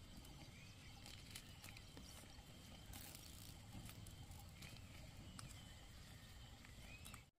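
Faint snapping of water spinach stems and rustling of the leaves as they are picked by hand, a few scattered soft clicks over a low steady background.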